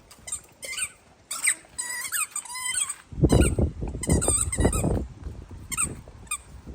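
A squeaky dog toy squeaking again and again, short high gliding squeaks, as a Dalmatian puppy plays with it. A loud low rumble runs for about two seconds in the middle.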